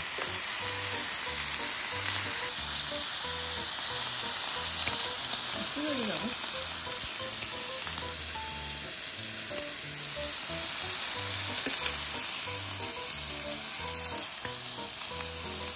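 Beef ribeye sizzling steadily on an electric grill pan, with quiet background music that has an even, repeating beat underneath.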